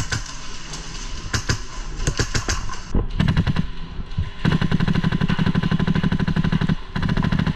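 Airsoft rifle firing on full auto: scattered single cracks, then a short burst about three seconds in and a long burst of rapid cracks with a brief break near the end.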